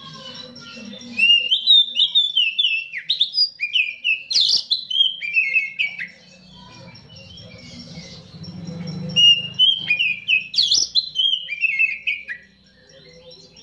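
Oriental magpie-robin singing: two runs of quick, varied whistled notes that slide up and down, each a few seconds long, with a pause of a few seconds between them.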